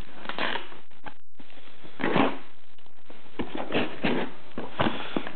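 Utility knife slitting the packing tape of a cardboard shipping carton, with scratchy scraping and rustling of the cardboard in a run of short strokes.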